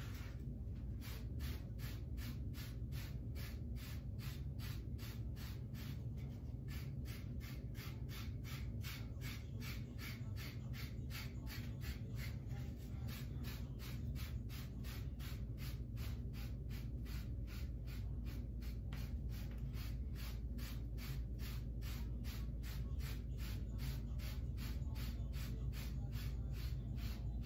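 Hand-held bristle brush swept over close-cropped waved hair in quick, even strokes, about three a second, starting about a second in.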